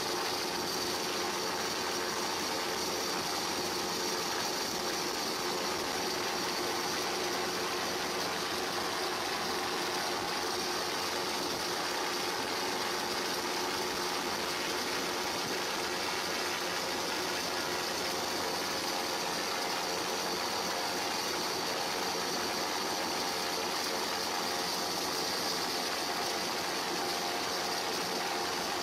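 A steady rushing noise with faint steady tones, unchanging throughout.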